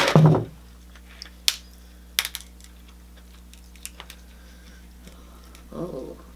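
Cooked shellfish shell being cracked and pulled apart by hand, giving a few sharp snaps and crackles. A short, louder mouth sound comes at the start and another near the end.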